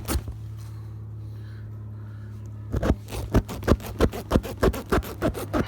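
T-handle tire-repair rasp being worked up and down in the puncture hole of a steel-belted radial tire, scraping the rubber and steel belts to clean and open the hole for a plug. After a short pause the strokes come in a steady rhythm of about three a second.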